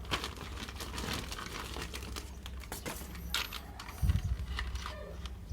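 Toy packaging being handled and opened: quick crinkling and crackling. There is a dull thump a little after four seconds in.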